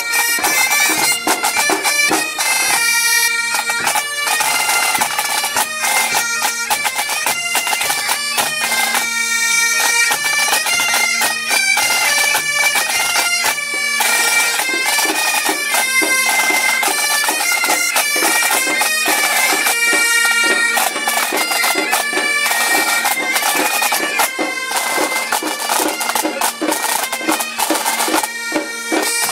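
Bagad pipe band playing: bagpipes sound a steady drone under a melody, with drums beating along.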